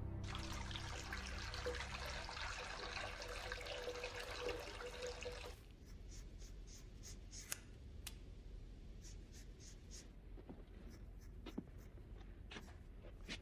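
Running water for about five seconds that cuts off suddenly, then scissors snipping through wet hair: short crisp cuts at irregular intervals.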